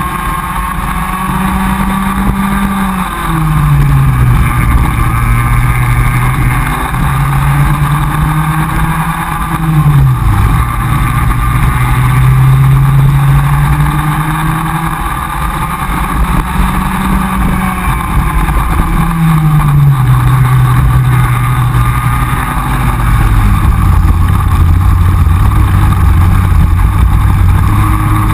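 Two-stroke Comer cadet kart engine heard from onboard, running at full throttle with its pitch climbing slowly along the straights and falling sharply four times as it lifts off for corners. Over the last few seconds it settles to low, steady revs as the kart slows.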